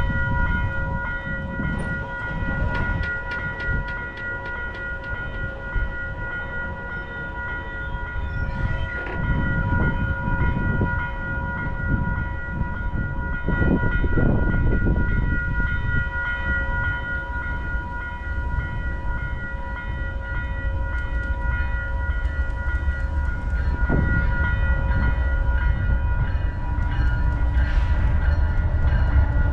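Diesel freight train approaching: a low rumble from the locomotives that slowly grows louder, with a steady high-pitched whine held underneath throughout.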